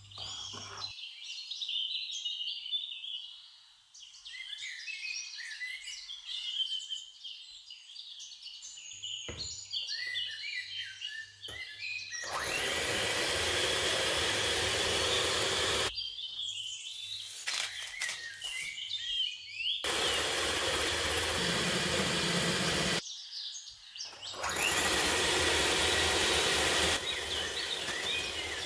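Birds chirping for about the first twelve seconds. Then an electric Russell Hobbs hand mixer whisking egg yolks runs with a steady whir in three stretches of a few seconds each, starting and stopping abruptly.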